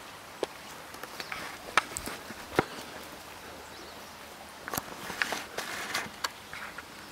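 Footsteps walking through the woods: irregular crunches and snaps in two loose clusters, with a steady outdoor hiss underneath.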